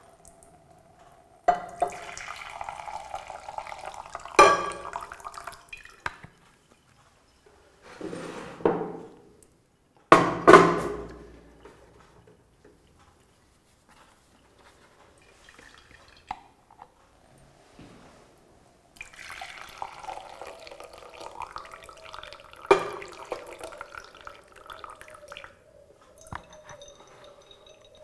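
Dark cochineal dye liquid is poured from a jar into a glass measuring jug, splashing and trickling in several spells with quiet gaps between them. A few sharp knocks stand out, the loudest about four and ten seconds in.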